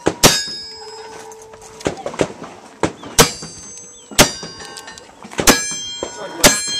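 Single-action revolver shots fired at steel targets, about five loud shots, each followed by the ringing clang of the struck steel. There is a longer gap after the first shot, with a few fainter cracks in it, and then the shots come about a second apart.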